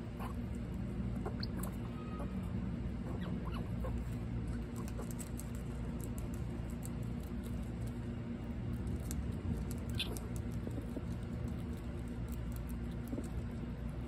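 Eastern gray squirrels nibbling a leafy twig: scattered small clicks and ticks of chewing and leaf handling, over a steady low hum.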